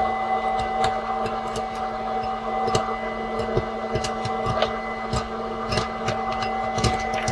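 Electric popcorn maker running with a steady motor hum while corn kernels pop irregularly, several sharp pops a second.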